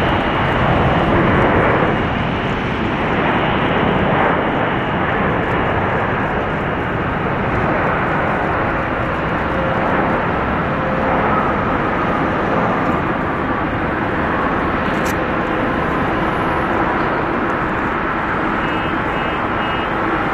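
Jet engines of a Boeing 787-8 airliner as it rolls out along the runway just after landing: a steady, dense engine noise that is a little louder in the first two seconds.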